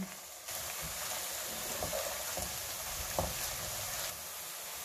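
Sliced onions and whole spices sizzling in hot oil in a pan as they are browned, a steady hiss starting about half a second in, with a couple of faint clicks of a spatula stirring them.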